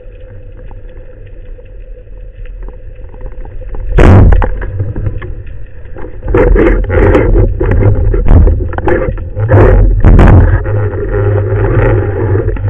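Underwater sound picked up through a camera housing on a speargun: a steady low rumble of water, a sharp loud knock about four seconds in, then a run of knocks and clatter from about six seconds on as the diver handles the speargun.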